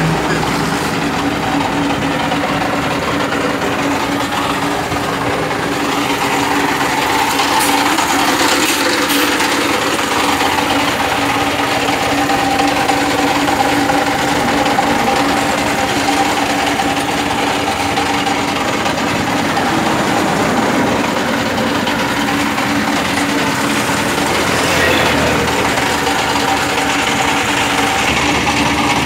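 Engine of thermoplastic road-marking equipment running steadily at constant speed, a continuous hum with a faint whine above it.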